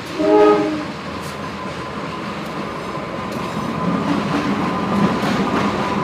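A diesel train's horn sounds one short blast in the first second, then the train runs past with a steady rumble, a thin steady high tone and wheel clicks over the rail joints.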